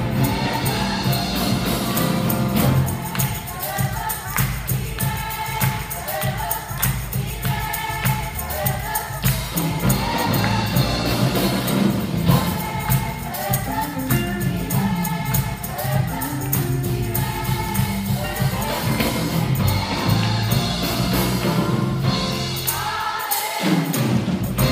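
Worship song sung by a choir over band accompaniment with a steady beat and tambourine.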